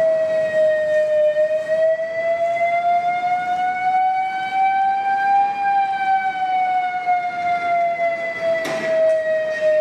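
Emergency siren sounding a steady wail as the alarm for an earthquake mock drill, its pitch drifting slowly down, up and down again. A short knock comes near the end.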